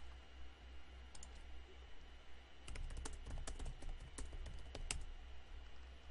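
Computer keyboard typing: a couple of clicks about a second in, then a quick run of keystrokes until about five seconds in, faint over a steady low hum.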